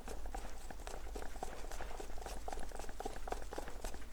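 Two-part epoxy resin being hand-stirred with a wooden spatula in a mixing cup: a steady stream of small, irregular clicks and wet scrapes as the stick works the thick liquid and scrapes the cup walls.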